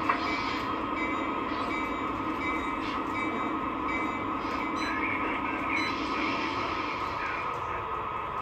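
O-scale model train running: a steady rolling rumble of wheels on track, easing off near the end.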